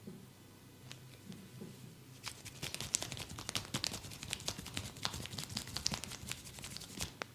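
Massage hands working on skin: a dense run of quick taps, slaps and crackles starting about two seconds in, ending with a sharp click just before the end.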